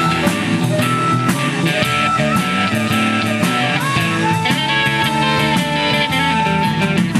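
Live blues band: a harmonica solo over electric bass and drum kit, with bending notes and one long held note in the second half.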